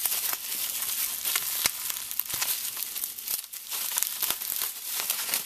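Packaging wrap crinkling and rustling as it is handled and pulled off, with many small sharp clicks and crackles.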